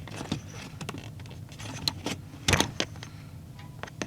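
Irregular clicks and handling knocks as a thermal turn-signal flasher relay is fitted into its socket, with the loudest knock about two and a half seconds in; no steady flasher rhythm yet.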